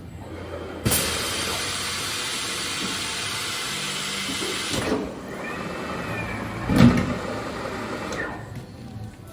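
Hunter tire changer at work mounting a new tire: a steady hiss starts suddenly about a second in and lasts about four seconds, then the machine's low hum runs with a brief squeal and a sharp knock about seven seconds in.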